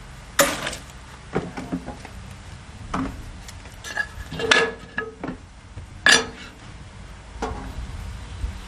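Steel knife blank and wooden jig being handled and set down on a drill press's iron table: about six separate metallic clanks and clinks, one ringing briefly about four and a half seconds in.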